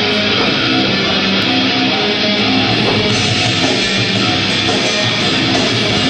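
Loud heavy rock entrance music with electric guitar, playing steadily as a wrestler makes his entrance.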